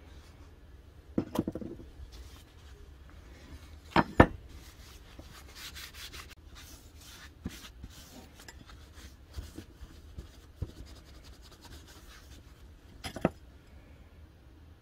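Paper tissue rubbing over an etched steel axe head, wiping it clean with acetone, broken by a few sharp knocks as things are set down and handled on the wooden bench; the loudest is a double knock about four seconds in.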